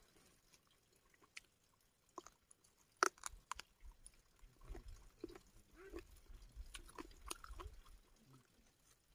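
Close-miked eating sounds of a person eating rice by hand. A few sharp mouth clicks and smacks come around three seconds in, the loudest of them just after three seconds, followed by quiet, irregular chewing.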